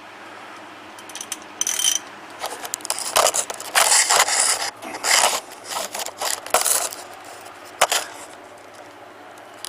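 Irregular scraping and rubbing in short bursts from work under the vehicle, with one sharp knock about eight seconds in.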